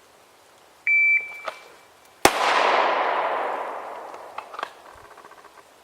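Shot-timer start beep, then about 1.4 s later a single shot from a Glock 17 9mm pistol drawn from the holster, its report echoing and fading over about two seconds. A few faint clicks follow near the end.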